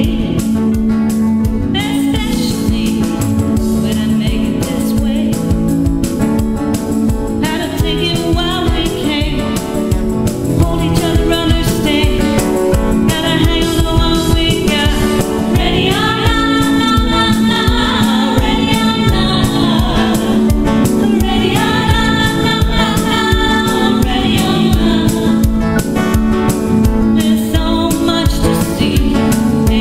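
A song: singing voices over steady instrumental accompaniment, the voices coming in about two seconds in and growing fuller around the middle.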